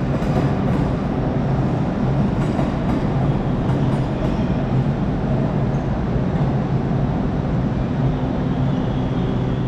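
GWR Intercity Express Train pulling out of the platform, with a steady rumble and a low hum from its traction equipment.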